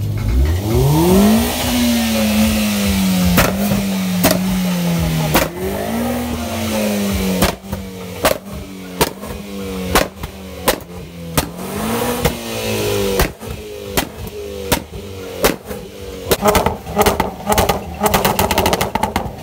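Performance car exhausts revved again and again, the engine pitch climbing and falling between blips, with sharp backfire pops. A Hyundai Veloster's exhaust pops as it shoots flame, and near the end a Jaguar F-Pace's twin exhausts crackle rapidly.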